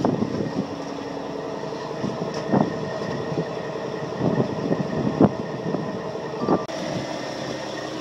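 Steady mechanical hum with several held tones, broken by a few soft footsteps on gravel.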